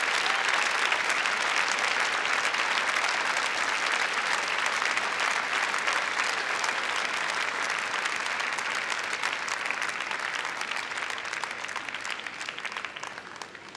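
Large arena audience applauding, dense and steady, dying away over the last few seconds.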